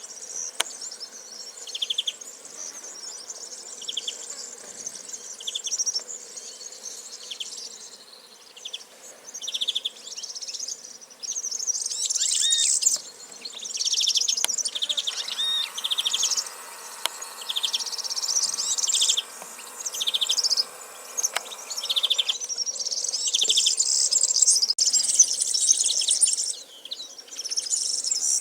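Outdoor chorus of insects buzzing high and steady, with short buzzy trills repeating every second or two and a few brief bird chirps.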